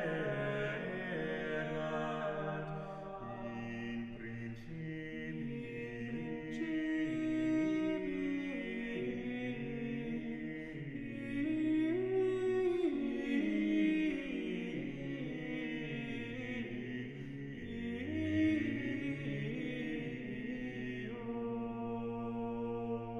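Slow, chant-like vocal music with long held notes and slowly gliding voices. About three-quarters of the way through it settles into steady sustained tones.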